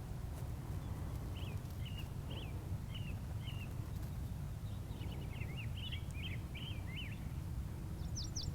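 Small birds chirping faintly in short, quick notes: a run of chirps, then a busier cluster in the middle, and a few higher, sharper calls near the end. A steady low background rumble lies underneath.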